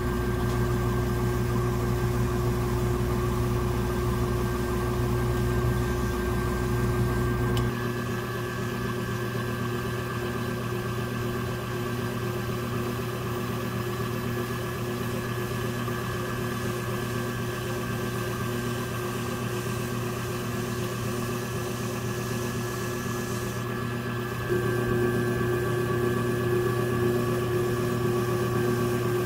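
Electric potter's wheel motor running with a steady hum while a metal trimming tool scrapes shavings off the turning leather-hard porcelain. The hum changes pitch about eight seconds in and gets louder near the end.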